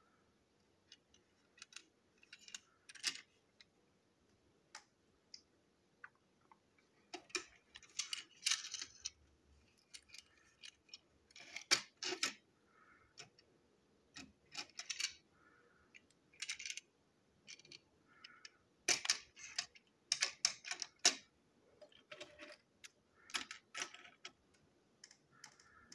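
Plastic Plarail toy train wagons being handled: irregular clicks, taps and short rattles as they are picked up, turned over and set down on a hard tabletop.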